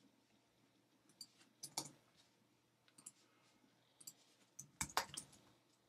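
Faint clicks of a computer mouse and keyboard: a few scattered clicks, then a quick cluster of keystrokes about five seconds in.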